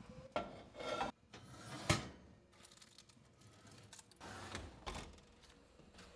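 A few short knocks and scrapes of things being handled, with the sharpest knock about two seconds in and another cluster a little after four seconds.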